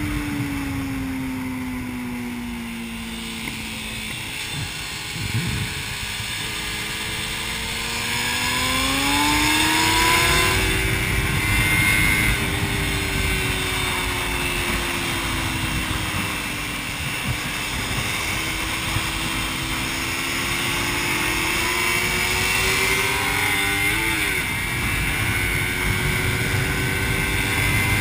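Suzuki SV650's V-twin engine on the move at track speed. Revs fall away over the first few seconds, climb hard around eight to ten seconds in, ease off, then build again to a quick blip about twenty-four seconds in. A steady wind rush runs underneath.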